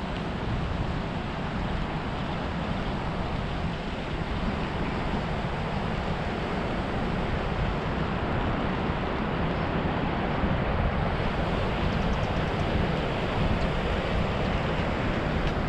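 Wind buffeting the microphone of a head-mounted GoPro Hero 7 on a moving bicycle: a steady, deep rushing noise that grows a little louder about halfway through.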